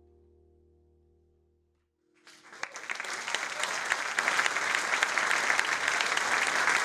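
A held final keyboard chord fades away, then about two seconds in an audience breaks into applause that swells quickly and stays loud.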